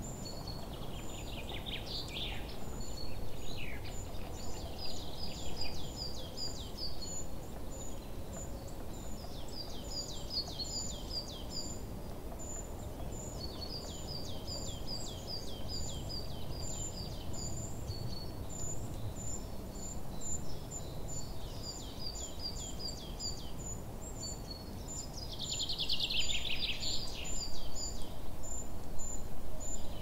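Outdoor nature ambience: birds singing in repeated runs of quick, falling notes, with the loudest run near the end, over a high, evenly repeated chirp and a low steady background hiss.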